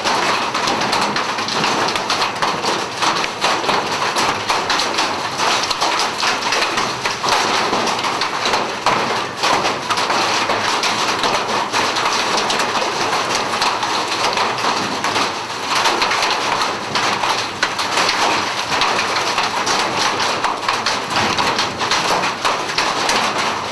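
Large hailstones and heavy rain pounding down: a loud, steady clatter of countless separate impacts over the hiss of the rain.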